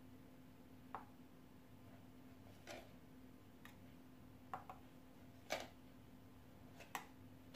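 Faint, irregular taps and clicks of a spoon against a bowl and a small verrine glass as mozzarella cubes are spooned in, about seven in all.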